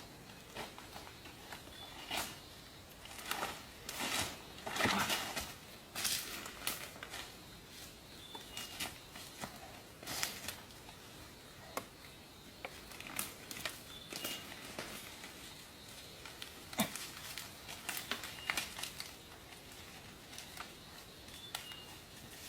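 Irregular rustling and crinkling with sharp light clicks, coming in uneven bursts, and a few faint short high chirps in between.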